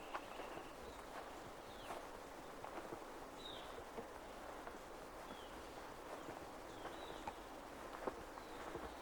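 Footsteps on a forest trail, irregular soft crunches, under short high bird chirps that come every second or two, some dropping in pitch, over a faint forest background.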